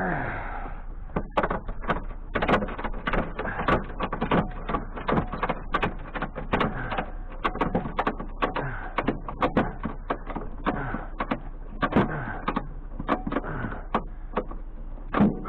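Rapid, irregular clattering and knocking, several sharp knocks a second throughout.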